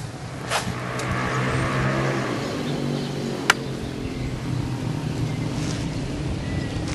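A motor vehicle's engine passing, its hum swelling about a second in and then slowly dropping in pitch as it fades a little. A single sharp click about halfway through.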